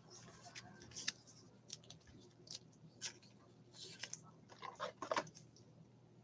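Faint, scattered clicks and rustles, a few at a time with a small cluster near the end, over a low steady hum.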